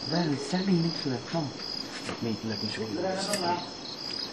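Crickets trilling steadily on one high note, with low murmured voices coming and going.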